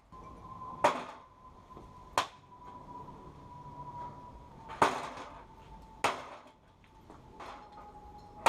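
An old printer being smashed with a cricket bat: four heavy blows crack into its plastic casing, in pairs about a second and a half apart, with a lighter knock near the end. A faint steady high tone runs underneath.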